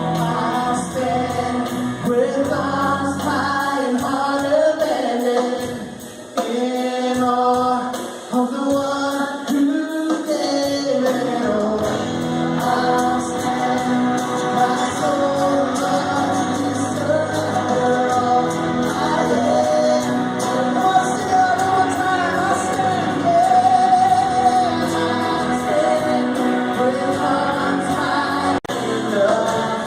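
Music with singing, several voices holding and bending notes together over a band.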